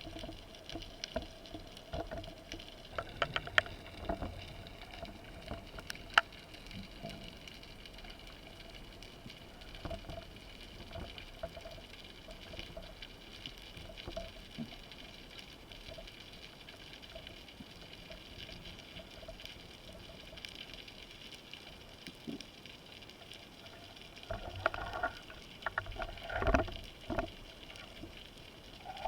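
Underwater ambience as picked up by a camera in its housing: scattered crackles and sharp clicks over a faint steady hum, with a cluster of louder knocks and rustling near the end.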